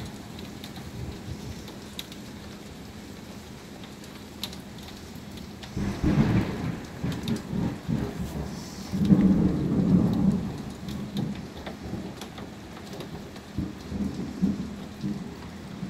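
Heavy rain falling steadily, with drops tapping close by. About six seconds in, thunder breaks and rumbles in two swells, the louder one around ten seconds in, before it dies away.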